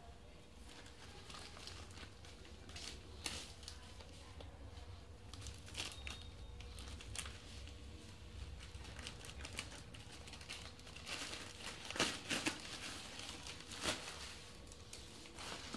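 Scissors snipping through a plastic courier mailer bag, and the plastic crinkling as it is handled and pulled open, in irregular crackles and snips with a few louder ones near the end.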